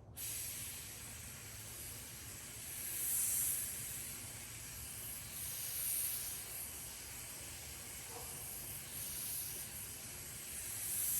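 Paint spray gun hissing as primer is sprayed, swelling louder and easing off several times.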